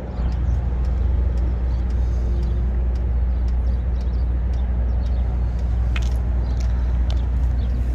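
Diesel air heater running: a steady low rumble from its burner and blower fan, with a few faint clicks scattered through it.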